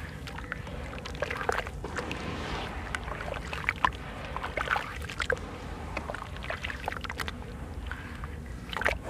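Hands swishing and squeezing watery sand-cement slurry in a basin, with irregular splashes and sloshes.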